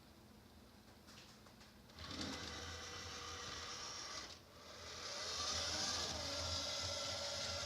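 Neato XV-21 robot vacuum's motors starting: a few faint clicks, then a steady motor hum and whine about two seconds in, a brief stop, and a spin-up with a rising whine to run steadily and louder.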